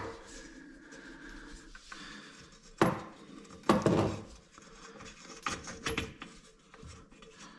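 Small hardware being handled: a few sharp clinks and knocks, spread a second or more apart, with faint rubbing between them.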